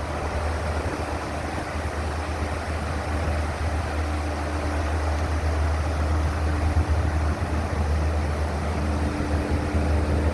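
Steady low road and engine rumble of a car heard from inside the cabin while driving, with a faint hum that fades in and out.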